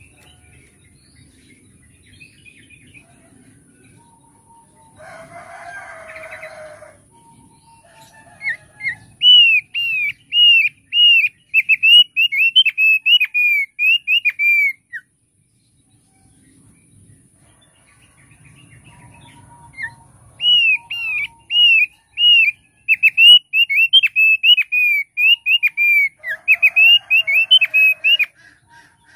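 Thick-billed white-eye (opior paruh tebal) singing two loud bouts of rapidly repeated, down-slurred clear notes, about two a second, each bout several seconds long. A brief harsh, rasping sound comes shortly before the first bout and again near the end.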